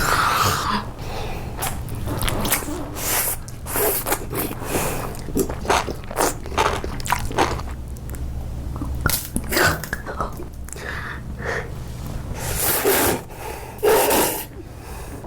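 Close-miked eating: irregular crunchy bites and chewing of food, with sharp crunches spread unevenly through the stretch.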